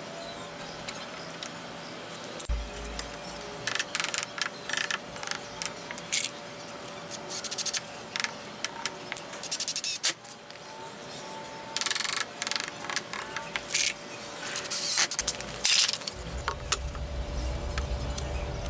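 Hand work on a wooden frame: scattered clicks, taps and scrapes, with short bursts from a cordless drill driving screws in the middle. A steady low hum starts near the end.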